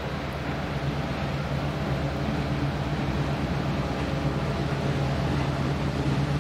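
Diesel locomotive approaching: a steady low engine drone that grows gradually louder as it nears.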